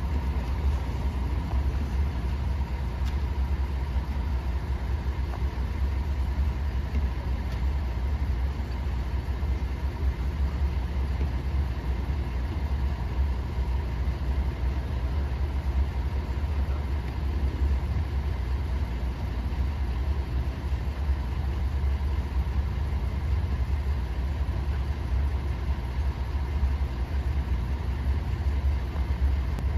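Fire department vehicle engines idling: a steady low rumble with a faint steady whine above it.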